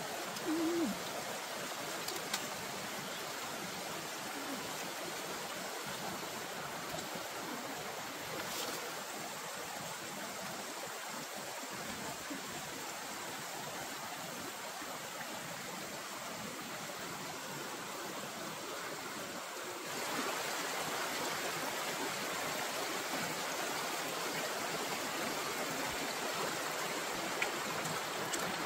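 Steady rush of a fast stream flowing over rocks, louder from about twenty seconds in. A short low tone sounds about half a second in.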